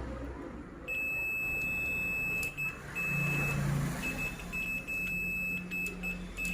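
Multimeter continuity buzzer giving a steady high beep that starts about a second in and cuts out briefly a few times as the probes lose and regain contact. The continuous tone means a near-zero resistance path, which the technician takes for a likely short in the laptop's B-FET MOSFET.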